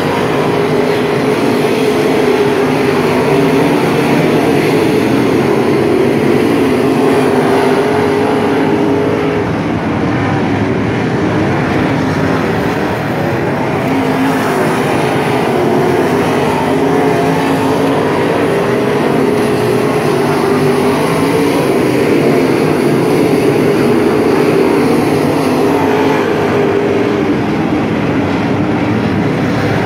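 A pack of dirt-track race cars running together around the oval under caution. Their engines make a loud, steady mix of overlapping pitches with no hard revving.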